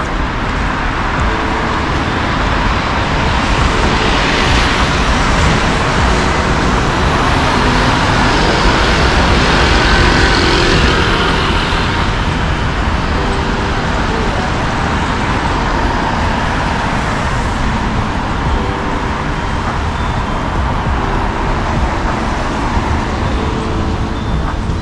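Steady city street traffic noise. It swells for several seconds about a quarter of the way in, as vehicles pass close by.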